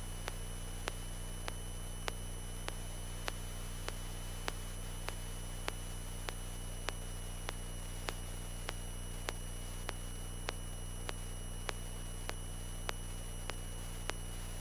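Cessna 172N's four-cylinder Lycoming engine as a steady low drone in the cockpit audio, under a faint hiss and faint regular ticks a little under twice a second.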